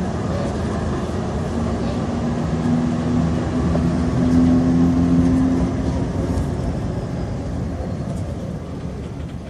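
Tram in motion: a steady rumble with a low hum that comes in about a second and a half in and fades out after about six seconds. The sound grows gradually quieter towards the end.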